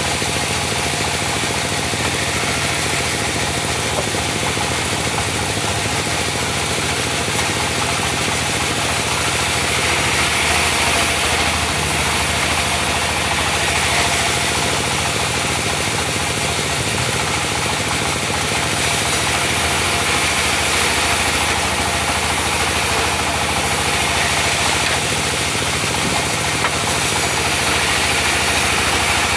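Diesel engine of a portable band sawmill running steadily, with a broad whirring noise over it that swells and eases a few times.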